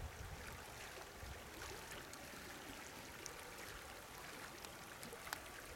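Faint, steady rush of a trout stream flowing, with a few faint ticks.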